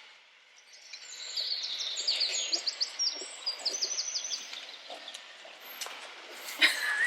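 A small songbird singing: a run of quick, high chirps and trills for a few seconds, with a short knock near the end.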